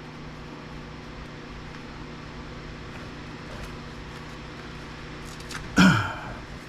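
Steady low background hum, then near the end one loud metal clank with a short ring: a steel part from the dismantled VCR being put down.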